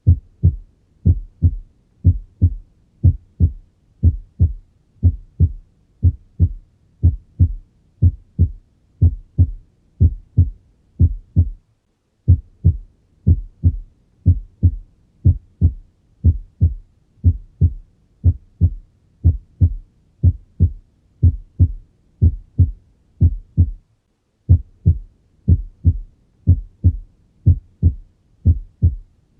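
Normal human heart sounds heard through a stethoscope: a steady lub-dub rhythm of about one beat a second, each beat a pair of dull thuds. The first sound is the closing of the mitral and tricuspid valves at the start of systole, the second the closing of the aortic and pulmonary valves at the start of diastole. The rhythm breaks off briefly twice.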